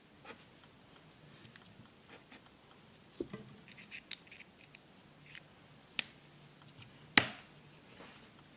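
Pen scratching on paper, with light ticks and taps from pens being handled. A sharp click about six seconds in and a louder one about a second later.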